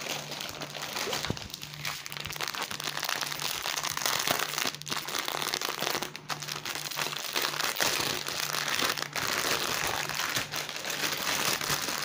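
Clear plastic bags of diamond-painting drills crinkling and rustling as they are handled, a continuous run of small crackles.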